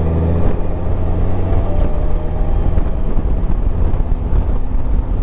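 Motorcycle engine running as the bike rides off, with steady road and wind noise; the engine pitch rises a little about two seconds in.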